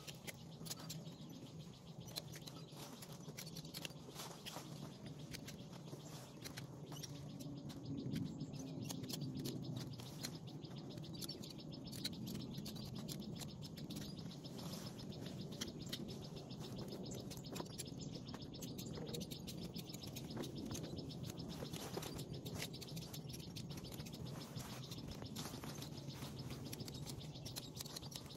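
Birds chirping over a steady low hum, with many small clicks and rustles of leaves and branches being handled.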